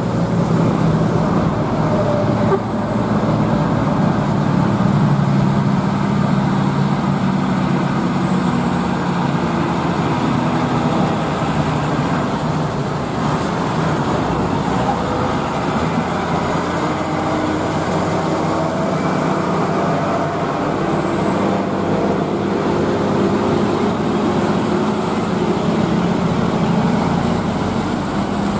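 Diesel engines of several heavy trucks running as they pass one after another on a climbing road, a continuous steady engine drone with road noise.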